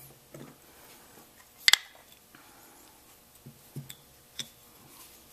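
Handling of a stainless revolver and its wooden grip panels on a towel: one sharp double click a little under two seconds in, then a few lighter taps and clicks.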